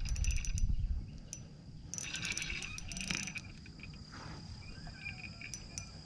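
Fishing reel clicking in quick runs while a bass is played on 6-pound line, once in the first second and again about two seconds in, over a faint steady high-pitched tone. A low rumble comes with the first run of clicks.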